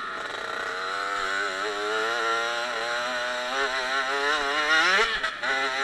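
Dirt bike engine under way, its pitch wavering up and down with the throttle, then climbing steeply about five seconds in before cutting in and out near the end.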